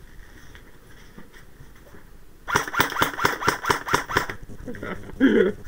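Airsoft rifle firing a rapid string of about a dozen sharp shots, roughly seven a second, starting about two and a half seconds in and lasting under two seconds. A brief voice follows near the end.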